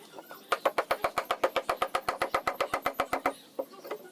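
A rapid, even run of sharp mechanical clicks, about eight a second, lasting nearly three seconds, followed by a couple of softer knocks near the end.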